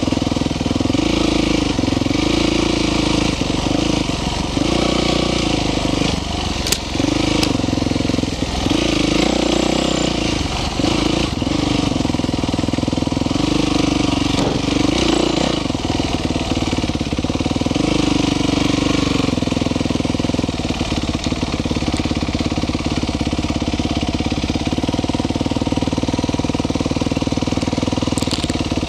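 Dirt bike engine running under way, its pitch rising and falling every second or two as the throttle is worked, then settling to a steadier, lower run about two-thirds of the way through. Two sharp clicks come about seven seconds in.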